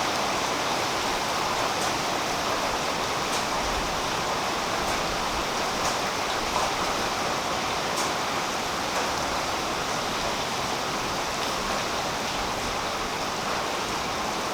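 Steady rain falling on a tree's leaves, an even hiss with a few sharper drop ticks now and then.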